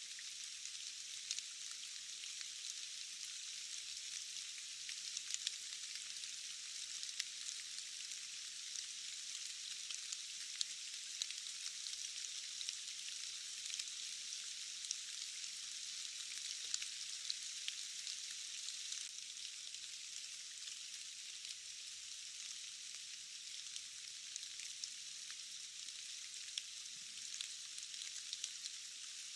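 Steady rain falling, an even hiss peppered with countless small drop ticks, thin and without any low end.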